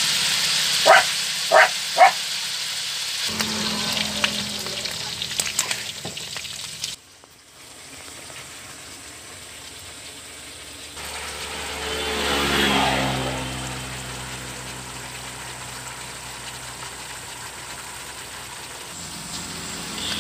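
Beef slices sizzling and simmering in a pan of sauce, with a steady crackle. About a second in there are three short, sharp barks from a dog. Around twelve seconds in, a passing motor rises and falls in pitch.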